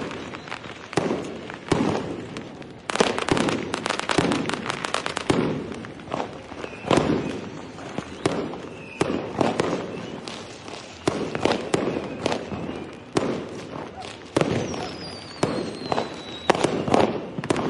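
Fireworks going off: repeated bangs every second or so, a dense run of rapid crackling pops about three to five seconds in, and a falling whistle near the end.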